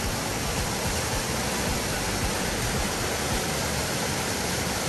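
Steady rush of falling water from Amicalola Falls, an even, unbroken hiss with no other event standing out.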